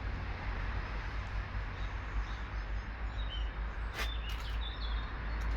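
Steady outdoor background noise with a low rumble, a single sharp tap about four seconds in, and a few faint bird chirps.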